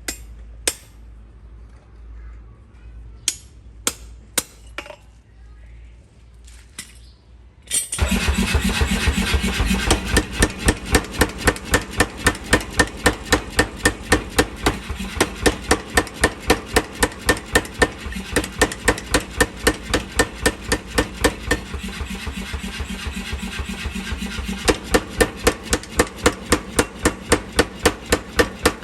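A few separate metal knocks, then about eight seconds in a forging power hammer starts up and strikes hot steel in a fast, even rhythm of about three blows a second over the hum of its motor.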